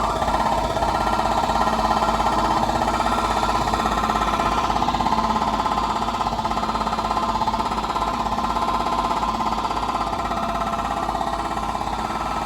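Jackhammers hammering continuously and rapidly, heard indoors through a slightly open window.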